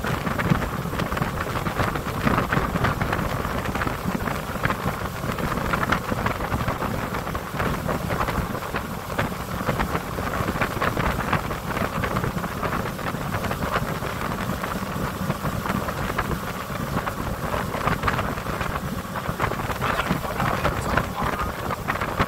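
Wind buffeting a phone's microphone on a moving motorboat: a steady, gusting rush, with the low running noise of the boat underneath.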